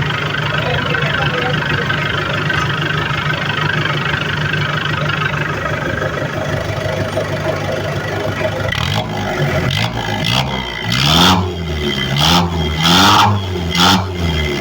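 Mitsubishi L300's engine idling steadily through an aftermarket 'Serigala' racing muffler tuned for a deep 'wet snore' tone. About two-thirds of the way in it is revved in about four quick throttle blips, the pitch rising and falling each time.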